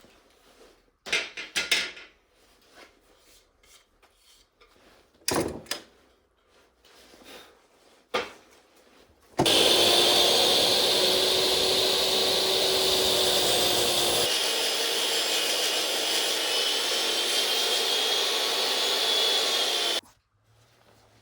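A few short knocks and scrapes of wood being handled, then a power tool working wood runs steadily for about ten seconds, starting and stopping abruptly.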